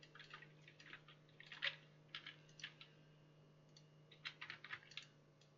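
Faint, irregular clicking of typing on a computer keyboard, in clusters of a few keystrokes, over a low steady hum.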